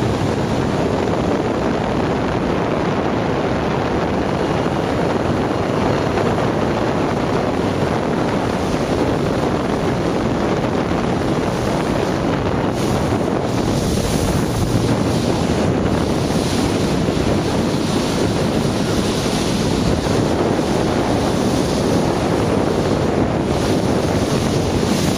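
Steady rush of wind buffeting the microphone and water churning past a fast-moving motorboat, with engine noise underneath. The hiss grows brighter about halfway through.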